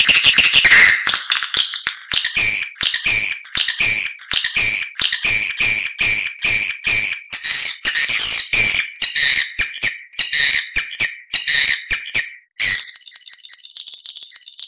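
Recorded swiftlet calls: rapid, repeated twittering chirps, about two to three a second. Near the end they give way to a thin, steady high rattle. This is a lure call, played to draw swiftlets in to nest in a prepared building.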